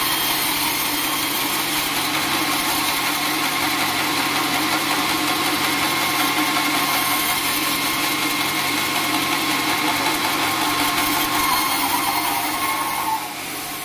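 Band sawmill running steadily, its blade sawing through a teak log. It is a steady machine hum with several fixed tones, and it drops in level near the end.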